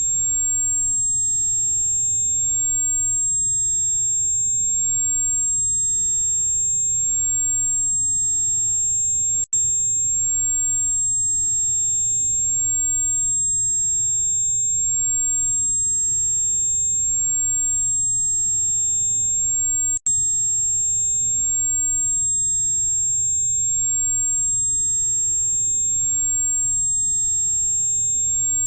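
A steady, very high-pitched electronic tone for tinnitus relief, with fainter high tones alongside it over a soft low hiss and hum. It cuts out for an instant twice, about ten seconds apart.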